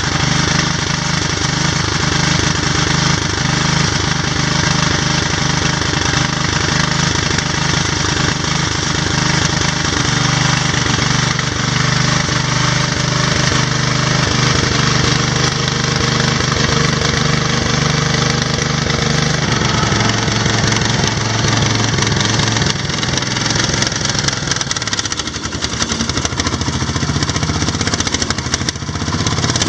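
Massey Ferguson 1650 tractor engine running steadily, its note changing about twenty seconds in.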